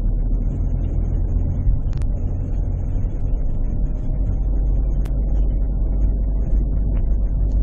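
Steady low engine and road rumble inside a car's cabin as it drives up a parking garage's ramps, with two brief clicks, about two and five seconds in.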